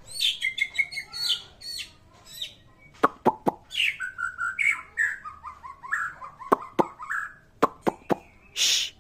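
White-rumped shama singing: quick whistled phrases, then a long run of notes stepping down in pitch, mixed with sharp clicks and a short harsh rasp near the end.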